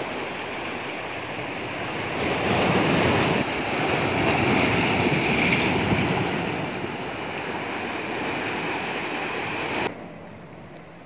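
Sea surf washing in. It swells louder twice, with wind rushing on the microphone, and drops off abruptly near the end.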